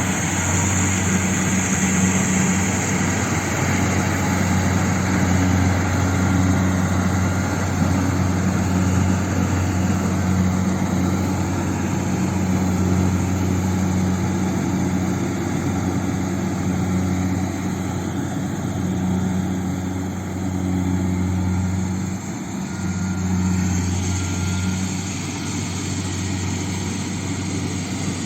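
Kubota combine harvester's diesel engine running steadily while it works the rice field: a constant low engine hum under a broad mechanical noise, briefly dipping about three-quarters of the way through.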